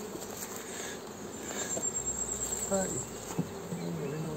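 Honeybees buzzing around an open hive, with single bees droning close past now and then. There is one light knock a little over three seconds in.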